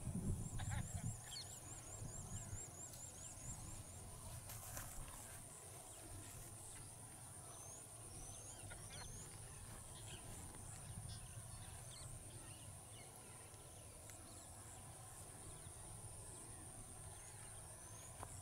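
Faint outdoor ambience of birds calling: short rising whistled chirps and, in the first few seconds, a quick trill of repeated high notes. A steady high-pitched whine runs underneath, and a low rumble fades out in the first second.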